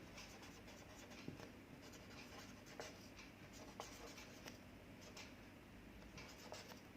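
Faint writing sounds: a pen scratching, with a few light taps scattered through.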